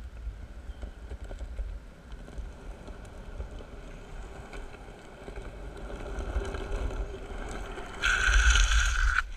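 Longboard wheels rolling fast down asphalt with wind on the microphone, then about eight seconds in a loud hissing slide of the wheels on the road lasting about a second, cut off sharply.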